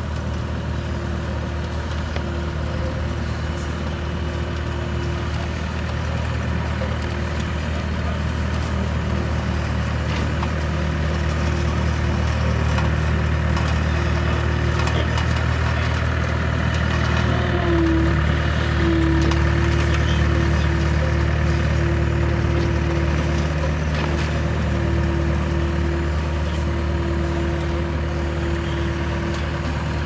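Diesel engine of a double-drum tandem road roller running steadily as it rolls over fresh asphalt, louder in the middle as it passes close. About eighteen seconds in, its engine note shifts and a higher tone becomes stronger.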